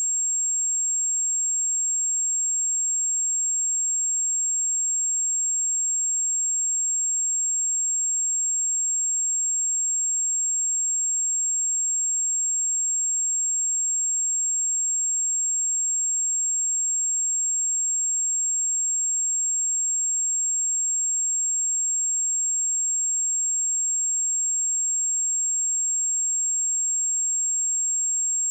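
Steady, unbroken high-pitched 7531 Hz sine-wave test tone at a constant level.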